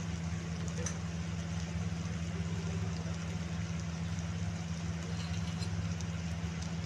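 A steady low hum with an even hiss over it.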